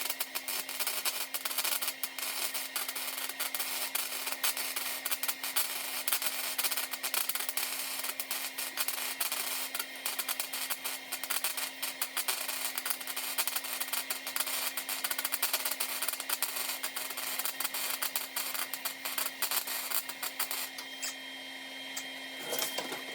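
Welding arc crackling and sputtering steadily as a sheet-metal rust patch is welded, stopping about three seconds before the end and leaving a steady low hum.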